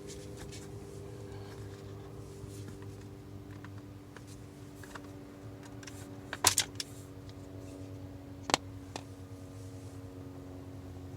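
Sharp plastic clicks from wiring connector latches being pried and pulled apart behind a steering wheel: a quick cluster of clicks about six and a half seconds in and one more about two seconds later, over a steady low hum.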